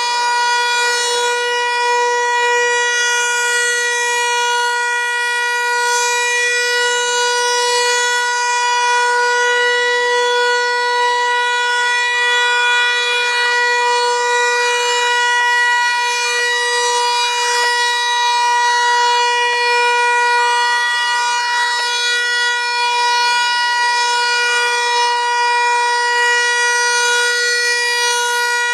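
Federal Signal Equinox outdoor warning siren, an 8-port chopper, sounding its steady Alert tone during a scheduled siren test: one held pitch with strong overtones that does not rise or fall.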